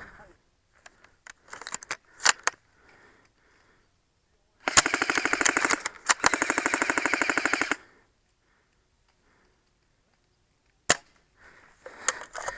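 Automatic airsoft gun firing two rapid full-auto bursts of about a second and a half each, a fast even rattle over a steady motor whine. A few sharp clicks come before them and one sharp crack near the end.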